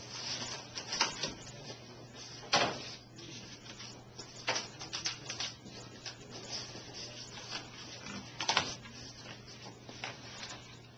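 Handling noise on a workbench: a series of knocks, taps and short scrapes as foam blocks and small craft items are picked up, moved and pressed down, the loudest knock a few seconds in. A steady low hum runs underneath.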